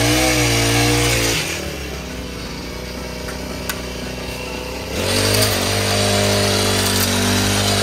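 Small petrol engine of a long-reach pole hedge trimmer revving high for about a second, dropping back to a lower idle, then revving up again about five seconds in and holding at high speed as the blades cut into the hedge.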